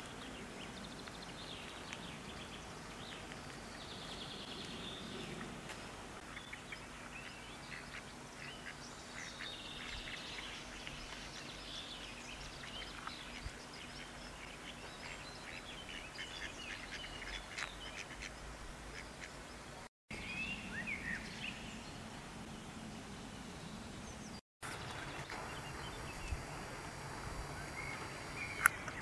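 Ducks quacking and other birds calling, with many short calls over a steady low background hum. The sound drops out briefly twice about two-thirds of the way through, and a sharp click near the end is the loudest moment.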